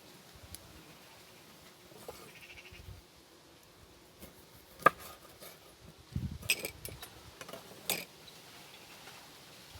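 Kitchenware being handled at an outdoor cooking spot: a few sharp clicks and knocks, the loudest about five seconds in, a cluster with a dull thump around six to seven seconds, and another near eight seconds.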